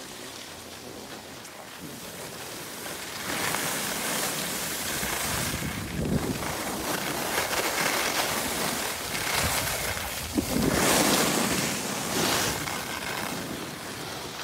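Skis scraping and hissing over hard-packed snow as the skier descends, swelling louder several times, with wind rushing over the microphone.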